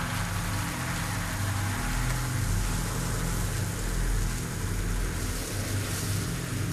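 Steady rain, with a low, steady hum underneath.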